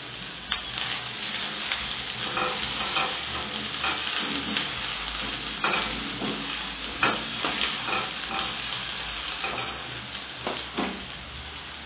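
Onions frying in oil in a pan with crunchy omena, a steady sizzle, with a spoon scraping and knocking against the pan at irregular moments as the mix is stirred.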